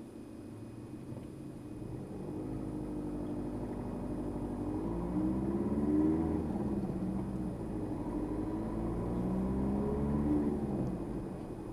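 Car engine heard from inside the cabin, pulling away and accelerating. Its pitch rises, drops at a gear change about six seconds in, then rises again and eases off near the end.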